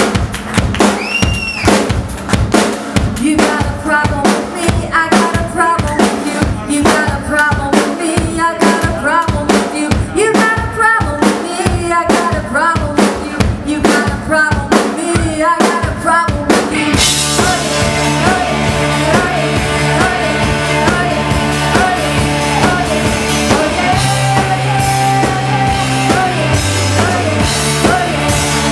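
Live rock band playing an instrumental intro with a drum kit prominent. For about the first seventeen seconds there are sharp drum hits with notes between them. Then the full band comes in with steady held bass notes and cymbals.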